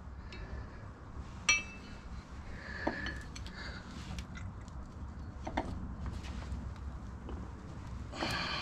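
Scattered metallic clinks and clicks of tools and loose metal parts being handled at a motorcycle's shaft-drive bevel box. The loudest is a single sharp clink about a second and a half in that rings briefly.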